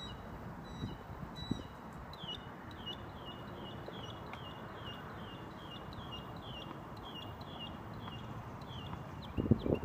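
A songbird calling a rapid run of short, high, falling chirps, about three a second, over steady outdoor noise. A couple of soft thumps come about a second in and a louder cluster of low thumps near the end.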